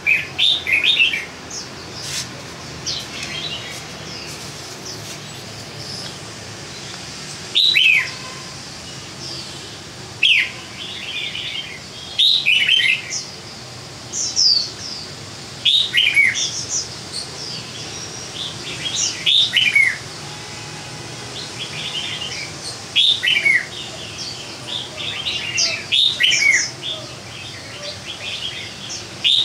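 Caged red-whiskered bulbul singing short, complete song phrases every few seconds, each a quick run of falling whistled notes.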